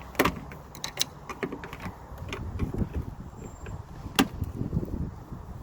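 Clicks, knocks and scraping from hands working inside a bare car door, pressing the clip tab to free the window glass from its regulator. Two sharp knocks stand out, one just after the start and a louder one about four seconds in, with rustling scrapes between.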